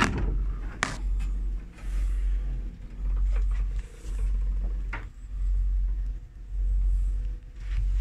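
Cabin wardrobe door clicking open, then a couple more sharp clicks, over a low rumble that pulses about once a second and a faint steady hum.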